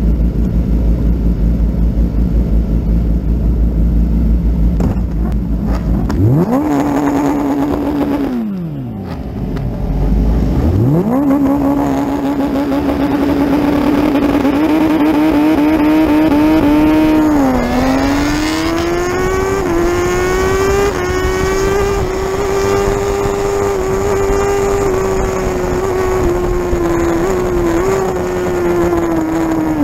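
Racing motorcycle engine on the starting grid. It idles at first, is revved up about six seconds in, drops back, then is revved again and held steady at high revs, around 8,500 rpm in first gear at a standstill. Then comes the race start: a brief dip in pitch at launch, after which it pulls hard, rising and staying high as it accelerates into second gear.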